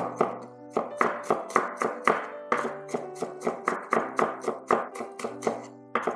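Chef's knife chopping garlic on a wooden cutting board: rapid sharp knocks, about four or five a second with short pauses, over background music.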